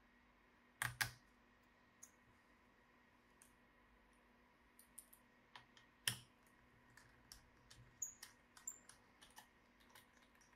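Light clicks and taps of small tools and parts being handled during a laptop disassembly. A sharp double click comes about a second in and another loud click near six seconds, followed by a quicker run of faint ticks near the end.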